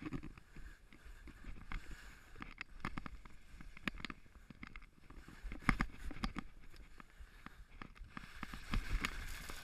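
Skis scraping and swishing through snow on a steep descent, with irregular sharp scrapes and knocks from the turns, the loudest about six and nine seconds in.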